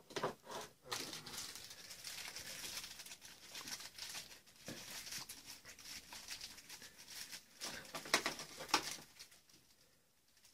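Thin clear plastic bags crinkling as small action-figure accessories are unwrapped by hand, with a few sharper crackles about eight seconds in.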